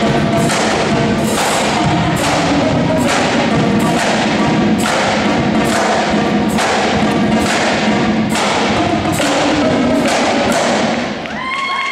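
High school drumline playing marching snare drums in a fast, continuous cadence, with strong accented hits a little under twice a second. The playing drops off briefly near the end.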